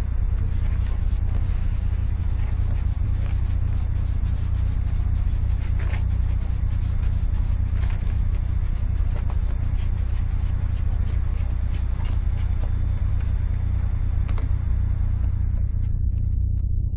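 Hands rubbing and working cleaner into the singed fur of a taxidermy bear mount: a dense scratchy rustling that thins out over the last few seconds, over a steady low hum.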